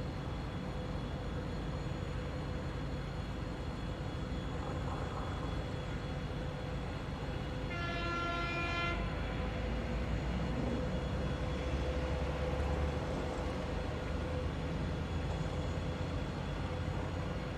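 2TE116U diesel locomotive running with a steady rumble and a thin, steady turbocharger whistle. It sounds its horn once, a single note of about a second, roughly midway.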